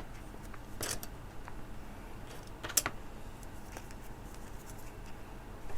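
A few small sharp clicks and light scrapes as a small tool pries at the crimped metal pin and plastic housing of a breadboard jumper wire, with the strongest clicks about one second in and a pair near three seconds.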